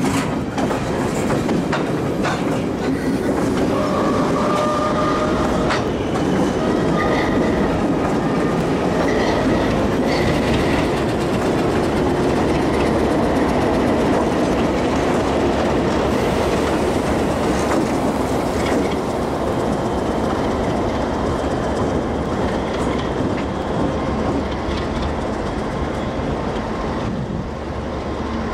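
Freight train of covered hoppers and diesel locomotives rolling past close by, a steady rumble with wheels clicking over the rail joints. Brief thin squeal tones from the wheels come and go in the first ten seconds or so.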